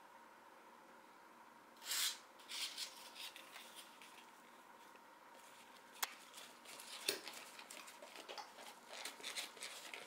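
Quiet room tone for about two seconds, then rustling and scraping noises with a sharp click and a thump, as of things being handled close by.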